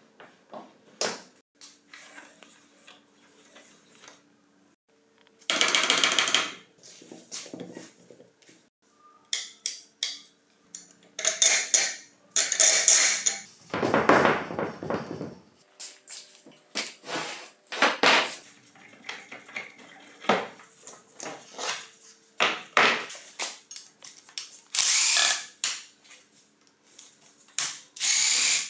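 Metal clanking, rattling and scraping from an old, rusty chisel mortiser being worked by hand: its levers, clamp and head moved and handled in irregular bursts. Near the end a screwdriver works at the motor housing.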